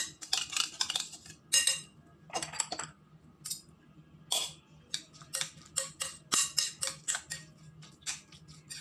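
Metal fork scraping and clinking against a glass bowl while stirring and mashing guacamole: irregular short strokes, often one or two a second.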